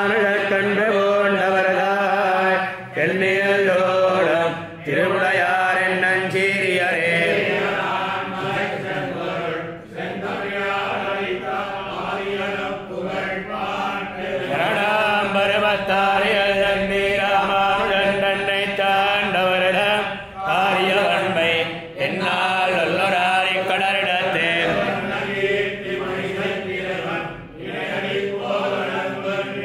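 Chanting of Tamil devotional verses, a continuous melodic recitation broken by brief pauses for breath every few seconds.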